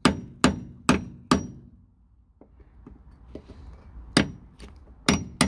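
Hammer striking a steel pin punch held against a car's bent sill pinch weld, knocking the flattened metal back down. Four blows about 0.4 s apart, a pause of about two and a half seconds, then three more blows near the end, each with a brief metallic ring.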